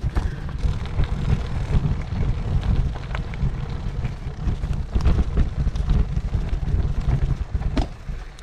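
Wind buffeting the microphone of a bike-mounted camera while a bicycle rolls over a loose gravel forest track, with scattered crackles and clicks from stones under the tyres. The noise drops away right at the end.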